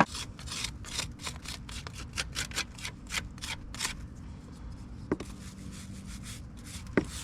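Brush scrubbing over freshly grouted mortar joints in brickwork, knocking down the excess mortar: quick scratchy strokes, about five a second, that thin out about four seconds in. Two sharp clicks about five and seven seconds in.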